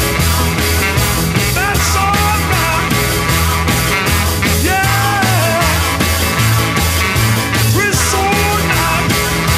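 Rock and roll music with a steady beat and no singing: an instrumental stretch of the soundtrack.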